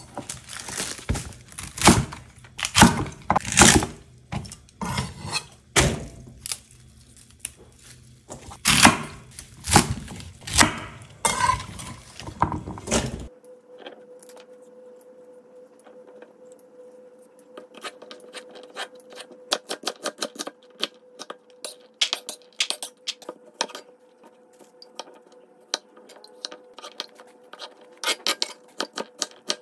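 Chef's knife cutting celery and cucumber on a wooden cutting board. Loud, irregular knocks of the blade on the board fill the first half. After a cut, a quieter run of quick knife taps plays over a faint steady hum.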